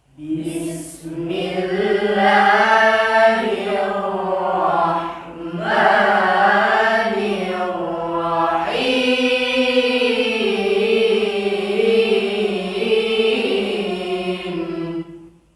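A young qari chanting Qur'an recitation (tilawah) in long, ornamented held phrases, with a short breath about five seconds in and a new phrase beginning near nine seconds.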